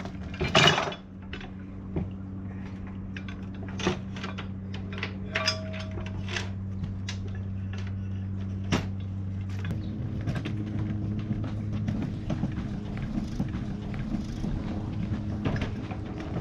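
Anchor chain clinking and rattling against metal as it is handled, a series of sharp metallic clinks over a steady low hum. The clatter gets busier and denser from about ten seconds in.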